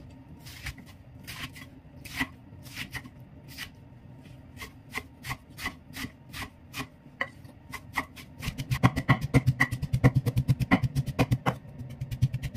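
Cleaver chopping fennel greens on a heavy round wooden chopping board: single spaced chops at first, then about two-thirds of the way in a fast, even run of chops as the greens are minced.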